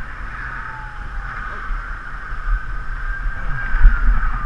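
Yamaha XT600's single-cylinder engine running at low speed while the bike rolls across grass, with a few heavier low thumps near the end.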